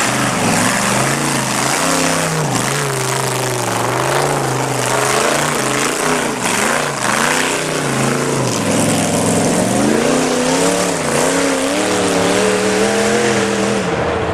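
Off-road tube-chassis buggy's engine revving loudly under load as it climbs a steep dirt hill, the pitch rising and falling again and again.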